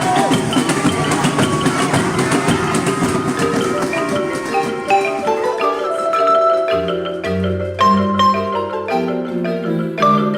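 Marimba playing a line of quick, separate struck notes. A dense, wavering texture fades out over the first few seconds, and low bass notes join about seven seconds in.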